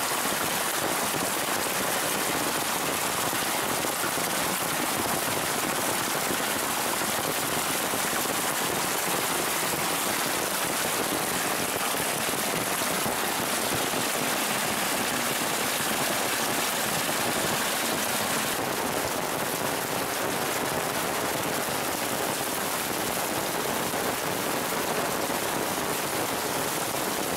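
Heavy downpour at the peak of an intense rain burst: a steady, dense hiss of rain hammering the ground and flooded basins, with stormwater rushing through them. The hiss changes slightly in tone about two-thirds of the way through.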